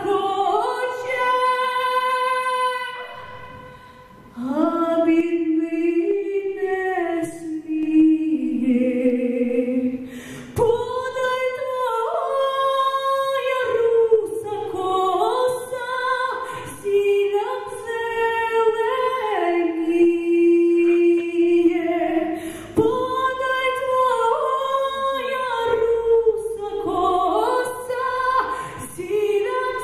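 A woman singing a Ukrainian folk song solo into a microphone, in long held notes, with a short breath pause about four seconds in.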